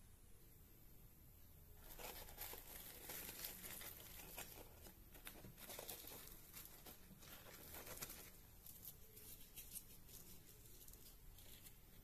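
A crisp, deep-fried poori being torn apart by hand: faint crackling and tearing that starts about two seconds in and dies down after about eight seconds.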